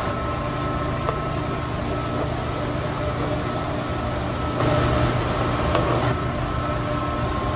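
Steady hum of running machinery with a few steady tones. About two-thirds through, a brief scraping rustle as the chiller's internal oil filter is slid out of its housing.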